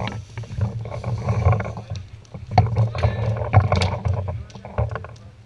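Footsteps and movement noise of a paintball player on the move, with a pulsing low rumble, scattered sharp clicks and muffled voices.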